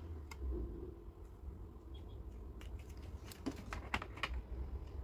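Light plastic clicks and taps as a white plastic motion-sensor LED light bar is handled and pressed up onto its adhesive mounts, a few isolated ones early and a cluster of them about two and a half to four and a half seconds in.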